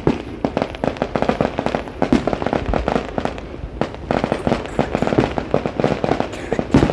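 Fireworks display in a rapid barrage: a dense, continuous run of bangs and crackling pops, several a second, with a louder bang near the end.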